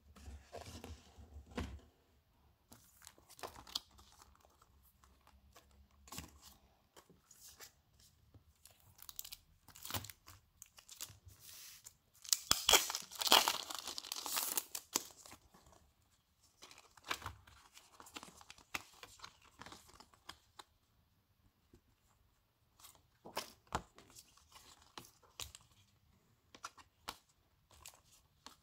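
Clear plastic sleeves crinkling and rustling as they are handled, with a louder stretch of tearing and crackling about halfway through as a sleeve is pulled open. Otherwise scattered light taps and rustles of cards and glossy photo prints being shuffled.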